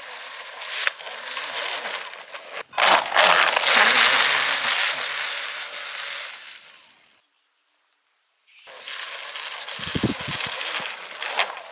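3D-printed SkeeRide 2 RC snowmobile driving over snow: a rough crunching hiss from the track churning snow, swelling and fading as it moves and dropping out for about a second a little past halfway.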